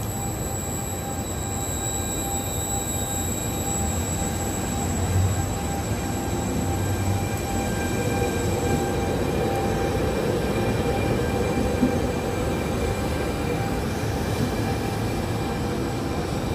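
FS E.464 electric locomotive and Trenord double-deck coaches rolling past on the rails, a steady rumble with a high electric whine over it that fades after a few seconds.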